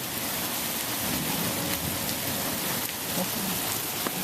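Heavy thunderstorm rain falling in a steady downpour, with a few faint sharp ticks, one near the end.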